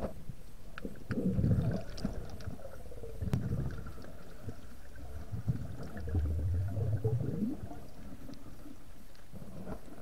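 Muffled underwater sound through a submerged camera: three low gurgling rumbles a couple of seconds apart, the last rising in pitch as it ends, with scattered faint clicks between them.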